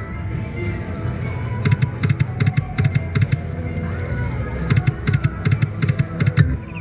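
Video slot machine's game sounds: an electronic tune with two runs of quick ticks, about five a second, as the reels spin and stop.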